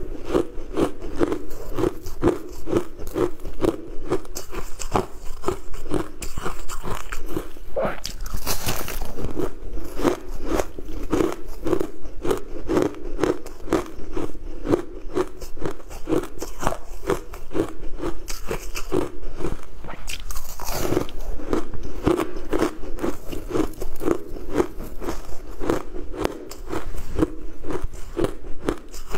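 Close-up biting and chewing of crushed coloured ice: rapid, crisp crunching throughout, with two louder, longer crackles about eight and twenty seconds in.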